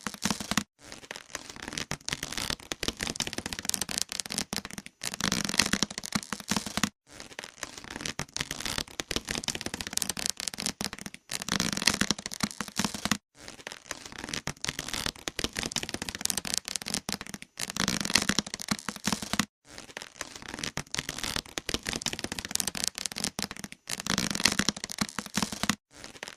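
Shape-shifter creature sound effect: dense crackling and cracking in stretches of a few seconds, each broken off by a brief silence, the same pattern repeating over and over.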